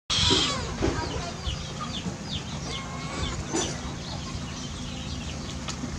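A cat's short hiss at the very start, then birds chirping in the background with many short falling calls.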